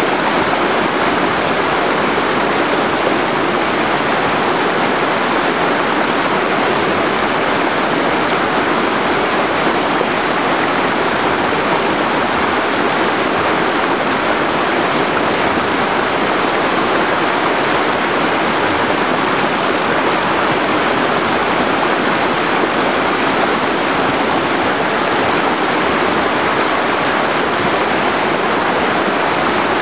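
River whitewater rapid rushing steadily, a loud, even churning of water with no breaks.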